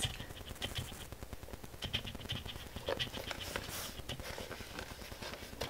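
Faint handling sounds of a coated-canvas toiletry pouch being turned over in the hands: scattered light clicks and soft rustles over a low room hum.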